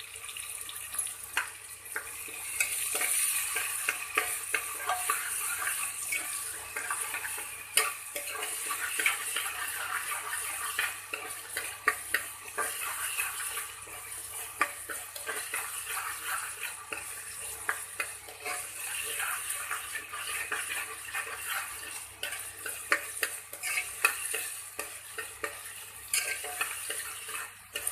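Chana dal frying in oil with tomato and ginger, sizzling steadily, while a spoon stirs it and taps and scrapes against the pan in many small clicks.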